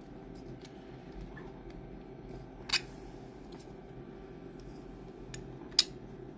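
Hard plastic clicks as 3D-printed PLA lamp parts are handled and pushed together: two sharp clicks about three seconds apart, with a few fainter ticks, over a steady low hum.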